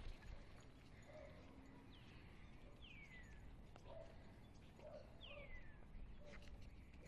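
Near silence: faint outdoor background with low wind rumble, and three short, falling whistled calls.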